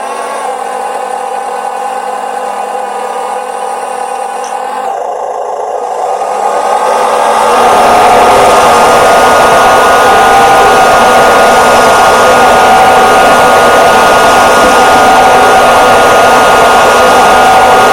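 Steady whine of an RC model tractor's small electric motor and gearbox. About five seconds in it shifts and grows louder, and from about seven seconds it settles into a louder, fuller steady running sound.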